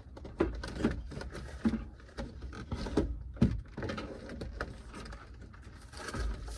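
Plastic car door panel and door parts being handled and worked into place: irregular clicks, knocks and taps.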